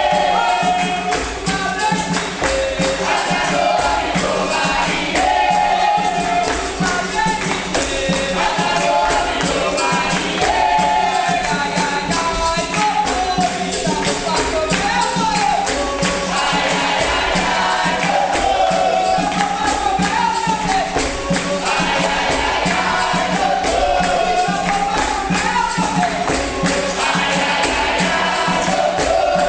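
Capoeira roda music: a group singing together over a pandeiro and other percussion, keeping up a steady rhythm.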